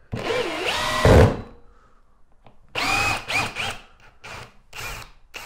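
Bosch GSB 18V-150 C brushless cordless drill/driver running in bursts on a long screw in chipboard, its motor whine rising and falling in pitch, with a heavy low thump about a second in. A second shorter run follows near the middle, then a few brief blips of the trigger.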